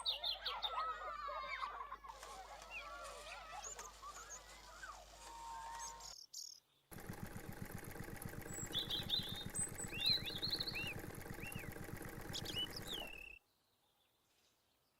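Small birds chirping and twittering. After a brief cut, birds chirp over a fast, even, low pulsing hum, and the sound cuts out near the end.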